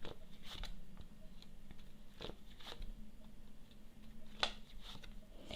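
Tarot cards being handled and laid out: a few soft, irregular clicks and snaps of card stock, over a faint steady low hum.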